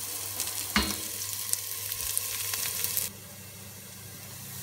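Chopped onion and garlic sizzling in hot oil in a pot, a steady crackling hiss with one sharp knock about a second in. The sizzle turns quieter after about three seconds.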